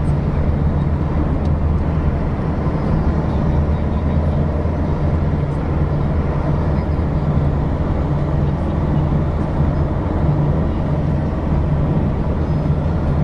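Car driving along a road: steady engine drone with a low hum and tyre and road noise, with no change in pace.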